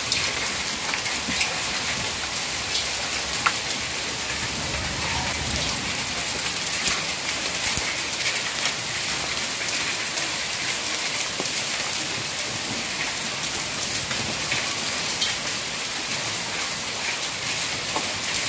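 Hail and heavy rain falling on hard, wet paved ground: a steady hiss with scattered sharp ticks from hailstones striking.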